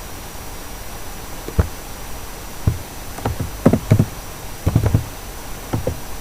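Computer keyboard keys being tapped in short irregular runs, a few strokes at a time, over steady hiss.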